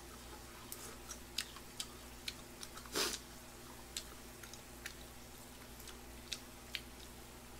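A man chewing grilled pork belly, with scattered light clicks of chopsticks against the grill pan and dishes and one louder clack about three seconds in.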